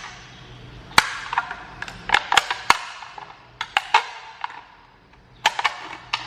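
An aluminium soda can being cut open, giving a string of sharp, irregular clicks and snaps of thin metal as the blade works through it.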